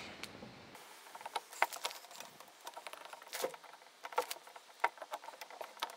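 Light, irregular clicks and taps of new brake pads and small metal parts being handled and fitted on a disc brake caliper, with one louder tap a little past halfway.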